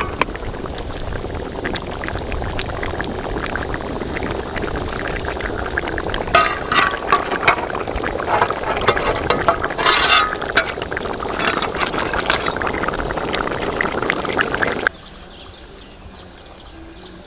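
Thick crab-roast gravy boiling and bubbling in a large wok, with a few metallic clinks between about six and ten seconds in. About fifteen seconds in the bubbling cuts off suddenly to a quieter steady background.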